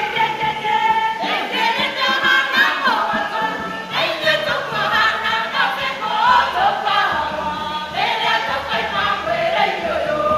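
Church choir singing a Kikuyu song, several voices together with pitch glides between notes.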